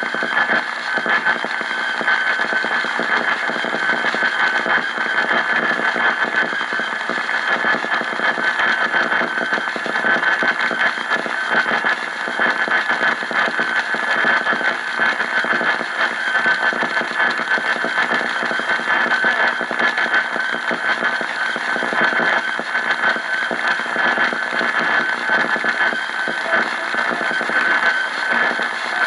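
AM radio receiver putting out loud, steady static with rapid crackle, overlaid by a constant high-pitched whistle from interference on a weak AM station.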